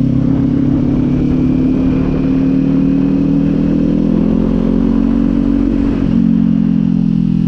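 Kawasaki Z400's parallel-twin engine running steadily while the motorcycle is ridden, its pitch rising a little over the first few seconds.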